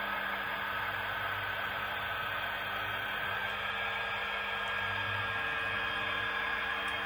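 Steady hum and whir of HO-scale model diesel locomotives running on track, their battery-powered motors turning and wheels rolling under boxcar and gondola, with a faint pulsing in the low hum.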